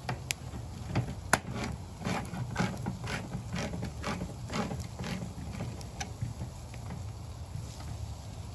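Hand-crank can opener cutting around a can lid: a run of clicking turns, about three a second, stopping about six seconds in.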